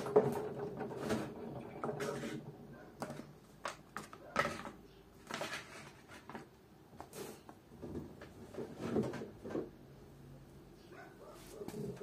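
LG front-loading washing machine tumbling a load on a quick wash. The drum motor's hum fades out about two seconds in and comes back near the end. In between, wet laundry falls and sloshes in the drum with irregular soft thuds and swishes.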